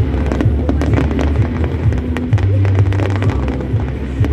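Display fireworks bursting in rapid succession, many sharp bangs and crackles, over loud music with a steady low bass.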